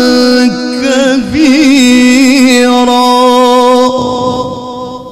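Solo male qari's melodic Quran recitation (tilawah) through a PA system: long held notes decorated with wavering ornaments. The voice breaks off about four seconds in and its echo fades away.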